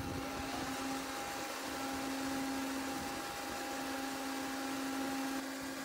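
Corded electric leaf blower running steadily: an even rush of air with a steady motor whine on top, loud enough to read about 106 dB on a sound level meter held beside it.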